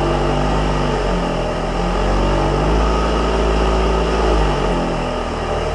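Motor-driven wire wheel running, its hum dipping and recovering in pitch several times, over a steady scratchy hiss as it cleans up a worn steel baler part.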